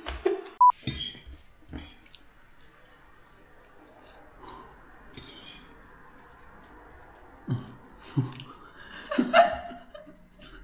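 Eating and tasting: light clinks of cutlery on dishes and chewing, with a short high ping about a second in and brief low voice sounds near the end.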